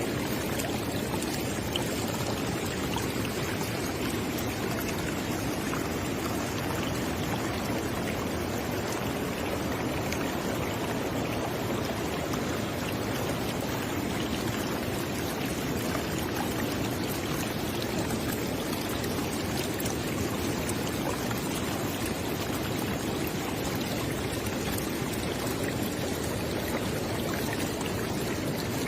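River water flowing over rocks, a steady rushing and burbling with no breaks.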